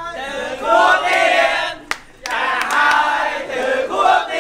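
A group of people singing together, with one sharp clap a little under two seconds in.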